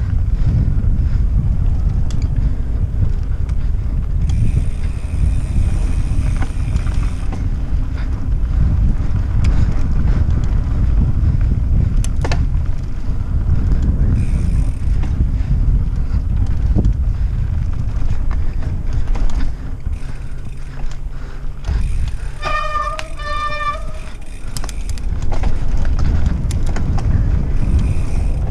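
Wind buffeting the microphone over the rumble and rattle of a mountain bike riding a dirt singletrack. A brief high squeal or honk comes about two-thirds of the way through.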